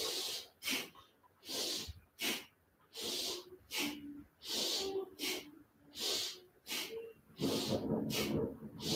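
A person breathing audibly and rhythmically through the nose in time with a yoga hand exercise, opening the hands and making a fist. There are about six breath cycles, each a longer hissing breath followed by a short sharp one, roughly one cycle every one and a half seconds.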